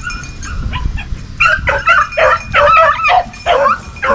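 Young hound puppies yipping and barking in a quick run of high calls, starting about a second and a half in, as they work a rabbit's scent.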